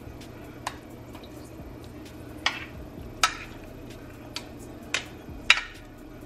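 Metal spoon clinking against a glass baking dish as pan juices are spooned over baked red snapper, about six sharp clinks with the loudest near the end, over a steady low hum.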